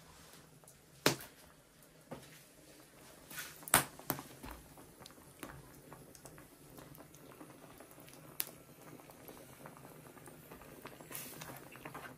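Pot of vegetable rice porridge boiling over a wood fire, with a faint steady bubbling and a few sharp pops or knocks. The loudest comes about a second in and another just before four seconds in.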